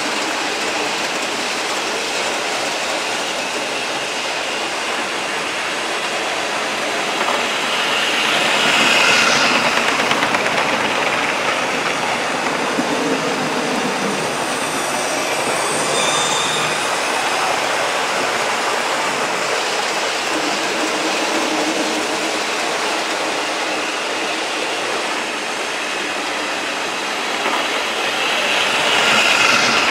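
OO gauge model trains running on a layout: a steady whir of small electric motors and wheels on track, swelling and rattling as a train passes close about nine seconds in and again near the end.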